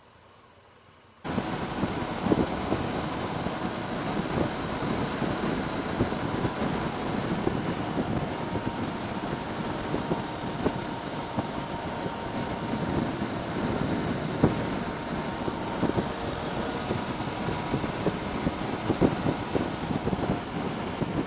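Wind rush and engine noise of a Triumph Tiger 800 motorcycle cruising at motorway speed, picked up by a helmet camera, with gusty buffeting on the microphone. It starts abruptly about a second in, after near silence.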